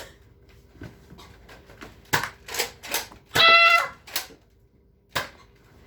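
A scattered run of sharp clicks and knocks, about seven over several seconds. Just after three and a half seconds in, a child gives a short high-pitched squeal, the loudest sound here.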